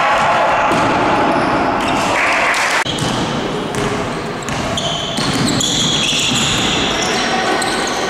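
Basketball game sounds in a large gym: a ball being dribbled on a wooden floor, echoing in the hall, with high short shoe squeaks and players' voices.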